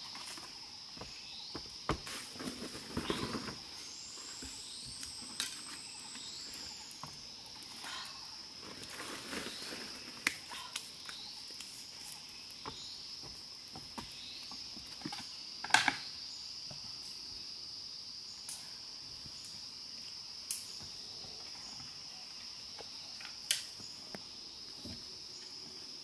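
Steady high-pitched insect drone of the forest, with faint short chirps repeating over it. Scattered knocks and rustles of someone handling things break in now and then, the loudest a sharp knock about midway.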